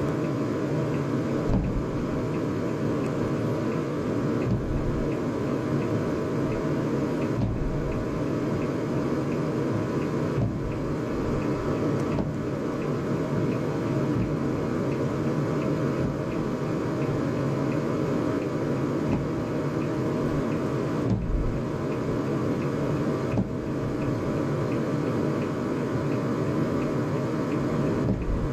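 Steady low rumble and hum inside a car's cabin, the car idling in traffic, with a few dull, muffled thumps of fireworks bursting outside.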